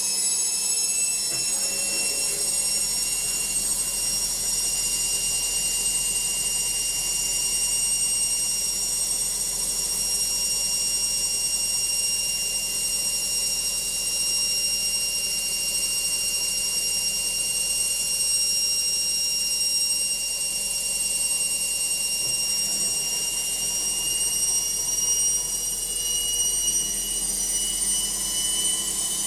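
Logik washing machine spinning, a noisy spin: a steady high-pitched motor whine over a low hum, its pitch creeping slightly higher near the end.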